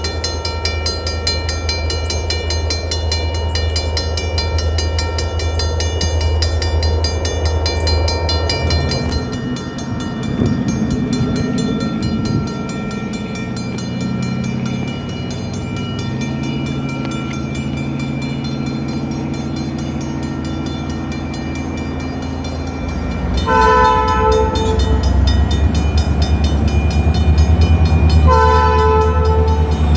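Safetran mechanical railroad crossing bell ringing with rapid, repeated strikes, clearest in the first third, over a low hum. Near the end a train horn sounds two long blasts.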